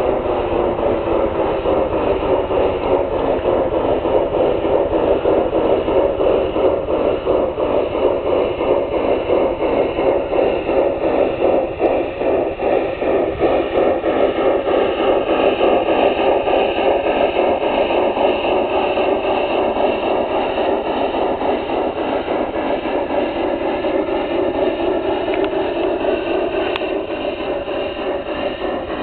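LGB garden-scale model train with a Mikado steam locomotive running along the track: a steady, fast rhythmic running sound with a few pitched tones that slowly slide in pitch.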